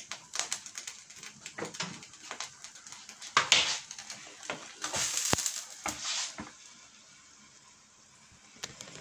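A frying pan with a glass lid is slid off a glass induction hob and set down on a wooden trivet: scraping and handling noise, with a single clunk about five seconds in, amid light clicks and crackles.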